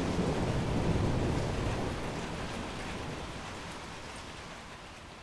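Steady rush of a waterfall's falling water, fading gradually over the second half.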